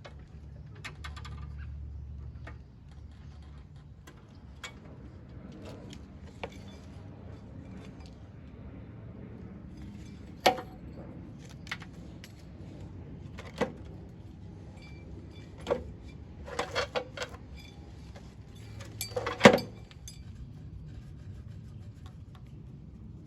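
Tools and small metal parts being handled: scattered clinks, taps and knocks. Several sharper metallic clanks come in the second half, with a quick cluster around two-thirds of the way through and the loudest strike just after.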